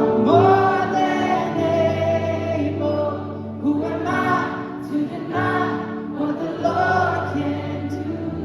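Background music: a song with sung vocal phrases over sustained low notes.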